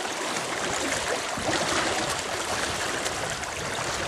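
River current rushing steadily past, an even wash of water noise.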